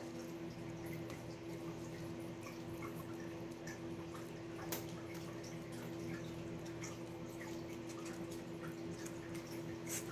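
Four-week-old Pomeranian puppy lapping soft mush from a plastic spoon: small, irregular wet smacking clicks, with one sharper click about halfway through, over a steady low hum.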